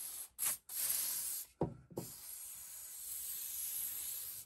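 Aerosol spray can spraying along a hedge cutter blade: a short burst, a longer spray, a brief thump about one and a half seconds in, then a long steady spray that cuts off abruptly near the end.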